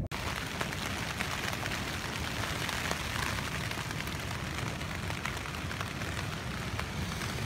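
Rain falling on a tent's fabric, heard from inside as a steady, dense patter of drops.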